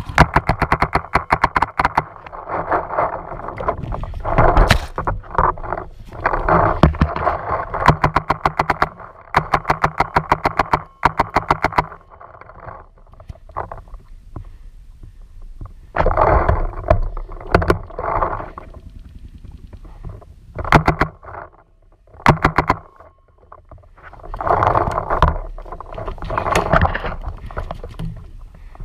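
Paintball marker firing close to the microphone in rapid strings of shots, in several bursts with short breaks, the longest in the first twelve seconds.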